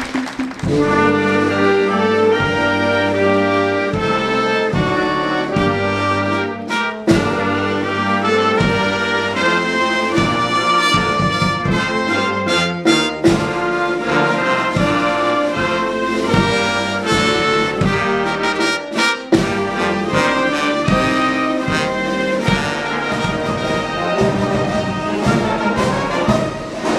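A military brass band playing a tune: trumpets and trombones over a low bass part.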